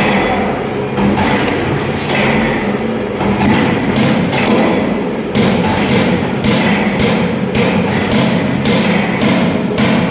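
Textile paper tube machine running with a steady mechanical clatter, and a sharp knock roughly once a second.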